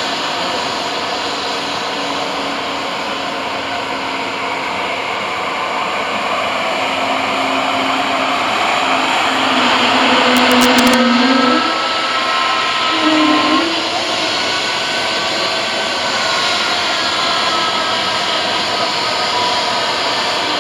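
Airbus A220's Pratt & Whitney PW1500G geared turbofan engines running: a steady jet rush with a low hum that shifts in pitch. It swells to its loudest about ten seconds in and eases back a couple of seconds later.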